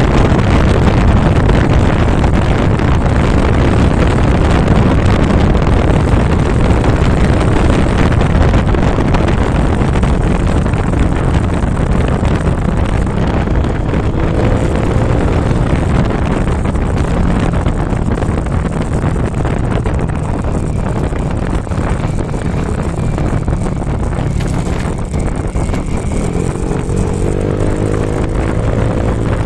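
Motorcycle under way, wind rushing over the microphone with the engine running beneath it, easing gradually as the bike slows from about 94 to 49 on the speedometer. The engine's pitched note shows through more clearly near the end.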